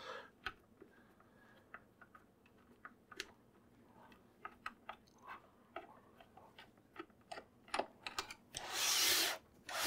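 Light scattered clicks and taps of a screwdriver and fingers on a plastic printer case. Near the end comes a louder scraping rush, about a second long, as the printer is slid and turned on the workbench.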